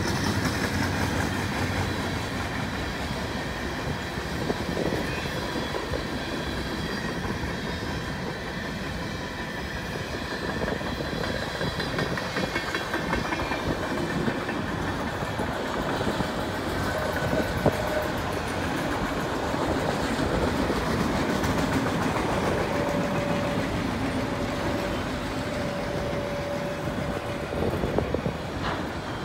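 CN freight train's covered hoppers and autorack cars rolling past on the rails: steady wheel-on-rail noise with clickety-clack over the rail joints. A faint steady tone joins in for a few seconds near the end.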